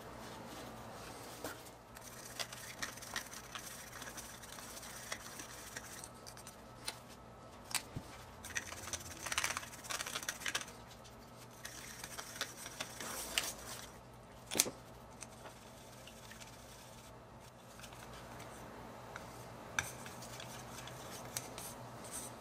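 Small clicks, taps and short scrapes of gloved hands handling plastic paint bottles and a small plastic mixing cup, and stirring paint in the cup with a wooden stick. The scraping is busiest a little before halfway, and there is one sharper click about two-thirds through.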